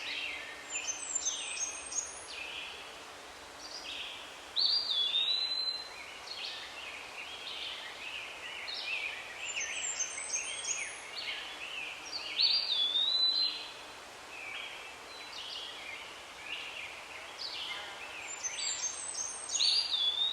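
Birdsong: a songbird sings a quick run of chirped notes ending in a clear whistled note, three times about eight seconds apart, with other chirping between.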